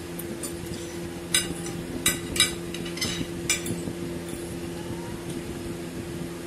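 Metal forks clinking against ceramic dinner plates: about five sharp clinks in a couple of seconds, over a steady low hum.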